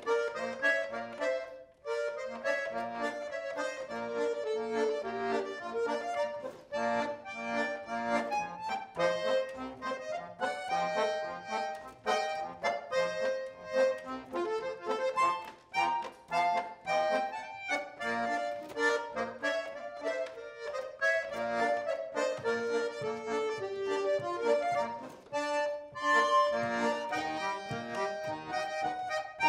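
Chemnitzer-style concertina played solo: reed melody notes over chords and bass notes, with a short break in the playing about two seconds in.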